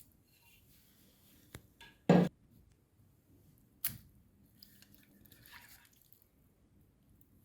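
Orbeez water beads squishing in a meat grinder, with a short, loud wet squelch about two seconds in. A sharp click follows near four seconds, then soft scattered rustling.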